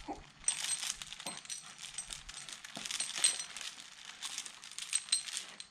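Irregular light metallic jingling and clinking: small pieces of metal rattling together, with several short high ringing strikes.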